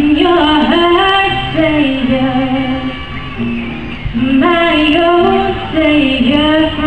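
A woman singing live into a microphone, accompanied on acoustic guitar: one sung phrase, a short break a little past the middle, then a second phrase.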